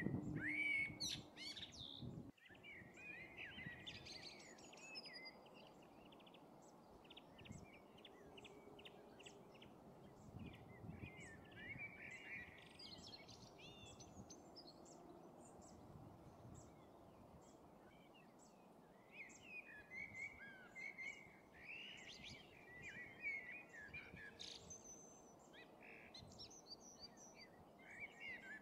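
Several small songbirds chirping and singing faintly, many short twittering phrases overlapping throughout. A low rumble in the first couple of seconds cuts off abruptly.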